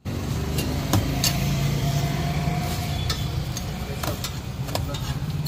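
Parathas sizzling on a large flat iron griddle (tawa), with a few sharp taps and scrapes of a metal spatula, over a steady low rumble of traffic.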